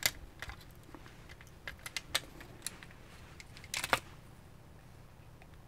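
Scattered light plastic clicks and snaps as a plastic pry tool works the casing of a Huawei Mobile WiFi Pro 2 router apart, the loudest a short cluster about four seconds in.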